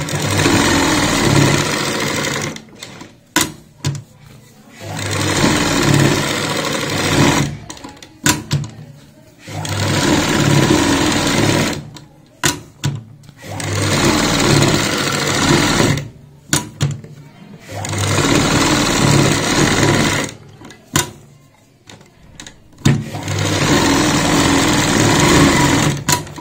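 Domestic straight-stitch sewing machine stitching in six runs of about two to three seconds each. Short pauses with a few clicks come between the runs.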